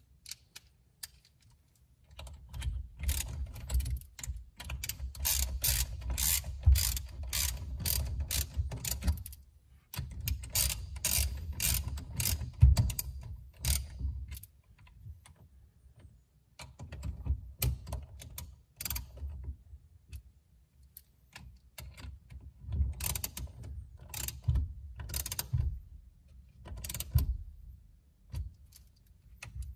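Hand ratchet clicking as it snugs down the two bolts of a steering wheel puller, in several runs of rapid clicks separated by short pauses.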